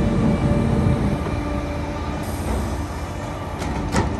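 Log truck's diesel engine and loader hydraulics working as the knuckleboom grapple swings logs onto the truck bed: a steady mechanical rumble with a sharp knock about four seconds in as the logs come down on the bed.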